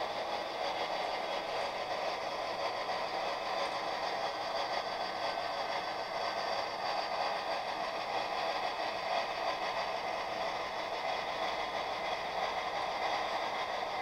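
HO-scale model diesel locomotives running on the layout's track: a steady whir with light clatter.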